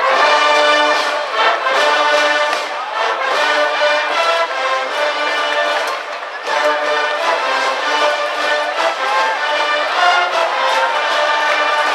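School brass band playing a baseball cheering tune, trumpets and trombones in loud held chords. The playing breaks off briefly about halfway through, then starts again.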